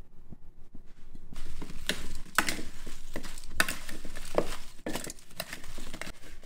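Metal tongs tossing oiled, halved Brussels sprouts in a glass bowl: repeated clinks of the tongs against the glass with the rustle and knock of the sprouts, starting about a second in.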